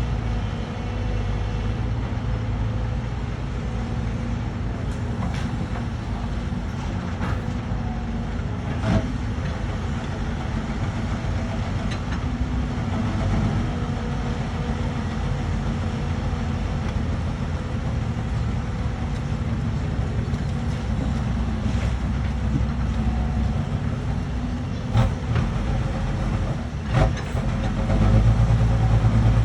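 Excavator's diesel engine running steadily with a low drone. Sharp knocks come through about a third of the way in and twice near the end, and the engine grows louder in the last couple of seconds.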